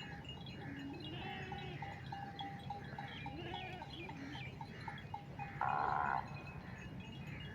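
A single loud bleat from a goat or sheep in the flock, lasting about half a second, comes about five and a half seconds in, over a faint, repeated light tinkling.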